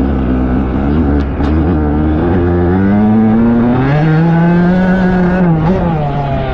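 Dirt bike engine heard close up from on the bike, running at low revs at first, then revving up about two seconds in and holding high, with a brief dip near the end as the throttle comes off.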